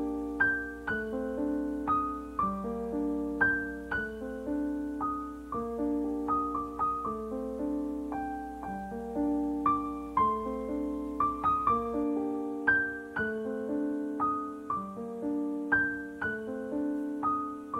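Background piano music: a gentle piece of struck notes and chords in a steady, flowing pattern.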